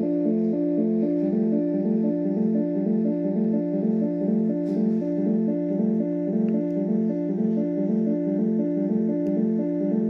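Electronic keyboard playing a quick, evenly repeating pattern of alternating notes over a held low note, a made-up imitation of an ambulance siren.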